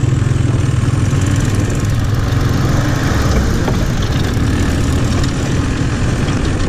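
A VW Beetle buggy's air-cooled flat-four engine running steadily while the buggy drives along, easing off slightly about a second in.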